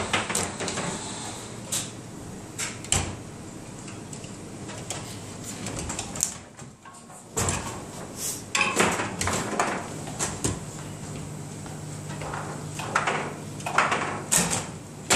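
Foosball game in play: irregular sharp clacks and knocks as the ball is struck by the plastic players and the steel rods are pushed and spun.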